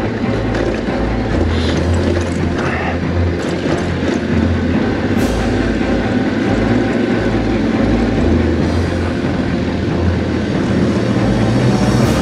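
Yamaha Ténéré 700 World Raid's parallel-twin engine running at low revs on a steep loose-stone descent, its note rising and falling, with the bike rattling over the rocks.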